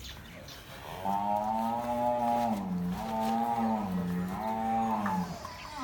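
A bull bellowing: one long, loud moo, its pitch dipping twice before it stops.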